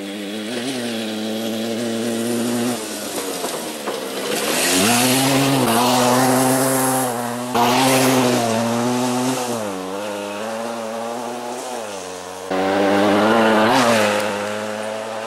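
1982 Kawasaki KE125's single-cylinder two-stroke engine revving hard as the trail bike rides past on a dirt track, its pitch rising and falling with the throttle. It grows louder as the bike closes in, loudest about halfway through and again near the end, with a few abrupt jumps in level between passes.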